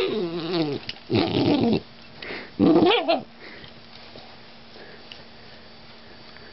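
German Shorthaired Pointer puppy vocalising: a whine sliding down in pitch, a rougher, noisier grumble, then another short whine, all within about the first three seconds. After that it goes quiet.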